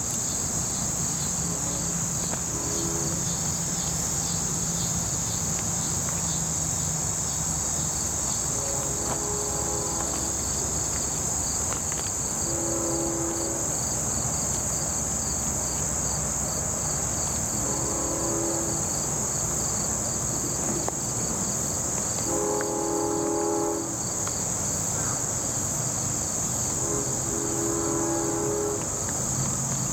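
Insects drone steadily at a high pitch, with a rhythmic chirping above it. A distant train horn sounds about six times in short chords, the longest about two-thirds of the way in.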